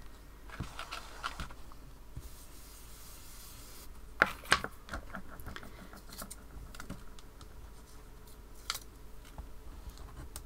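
Crafting handling on a desk: a blender brush briefly scrubbing ink onto card, two sharp knocks about four seconds in as the brush is set down on the craft mat, then light taps and paper handling as the masks are lifted off the card.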